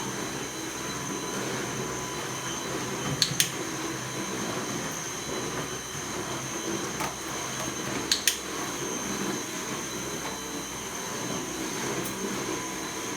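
Household vacuum cleaner running steadily some way off, a constant rushing noise with a thin high whine. Two pairs of sharp clicks stand out, about three and eight seconds in.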